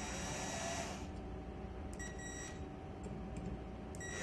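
Screw gun running in short bursts with a steady high whine as it drives a zinc-plated screw into a bronze ground clamp, tightening the clamp down. There is a run of about a second at the start, a shorter one about two seconds in, and another starting at the very end.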